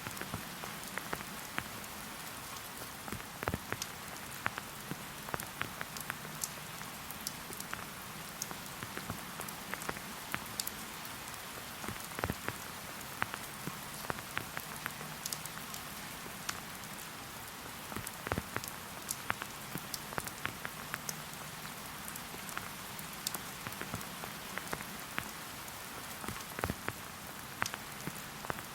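Steady rain falling in a forest: a constant hiss with frequent sharp, separate drop impacts.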